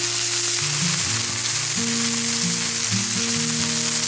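Raw chicken breasts sizzling on a hot, oiled Blackstone flat-top griddle as they are laid down, a dense, steady hiss of frying. Background music with held notes plays underneath.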